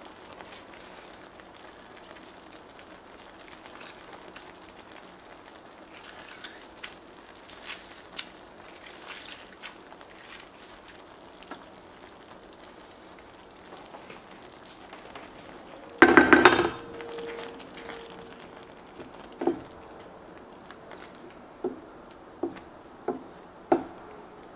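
Cooking sounds at an enameled cast-iron pot: small scattered clicks and scrapes, then a loud knock about two-thirds of the way through that rings on briefly. Five lighter knocks follow near the end, as a wooden spatula works through the thick sauce.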